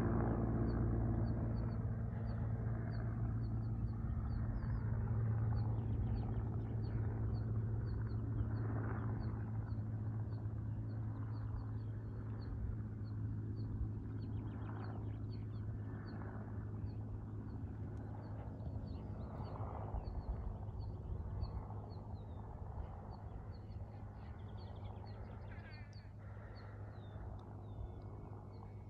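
A steady low mechanical hum that slowly fades away, with a small bird's short high chirp repeating a little more than once a second and a few louder, harsher calls.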